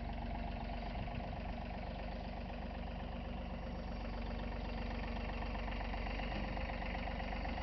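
Compact John Deere tractor engine running steadily while its front loader raises a plastic IBC water tote.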